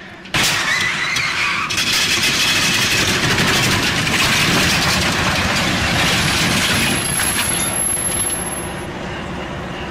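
A diesel locomotive hits a car broadside with a sudden crash about a third of a second in. The car is then shoved along the track, with loud metal grinding and scraping over ballast and earth, until it eases off to a lower rumble near the end.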